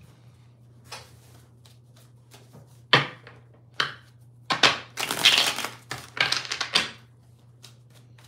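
A deck of tarot cards being shuffled by hand: a few separate snaps and slaps, then a busy run of shuffling about halfway through that lasts a couple of seconds.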